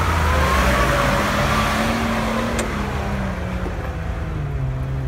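Nissan Patrol's engine working hard under load as the 4x4 climbs a steep dirt slope. The revs rise a little, then sag steadily through the second half.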